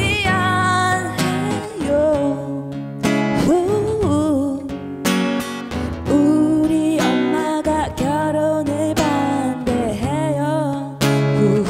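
A live blues song: a woman's voice singing held notes with vibrato over guitar accompaniment.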